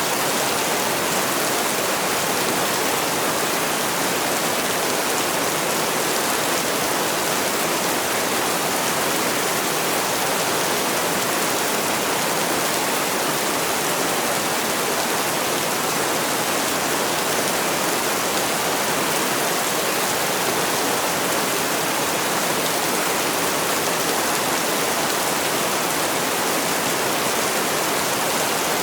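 Heavy rain falling steadily: a dense, even hiss, with no single drops, thunder or music standing out.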